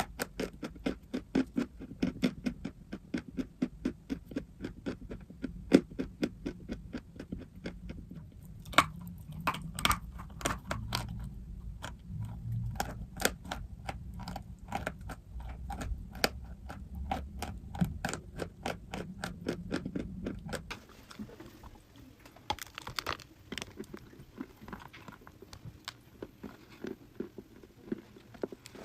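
Chewing of dry, crunchy chalk: a rapid run of sharp crunching clicks, dense at first, then sparser and softer after a low background hum stops about two-thirds of the way through.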